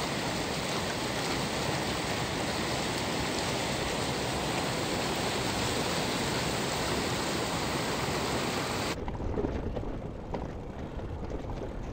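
Steady rush of flowing river water, even and unbroken. About nine seconds in it cuts abruptly to the quieter rolling and wind noise of a Brompton folding bicycle being ridden along a paved path.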